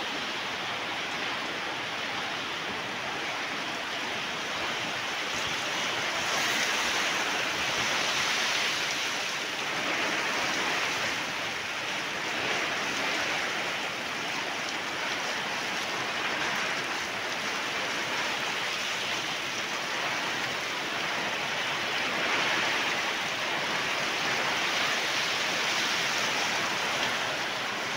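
Heavy rain pouring down steadily, swelling in strength now and then.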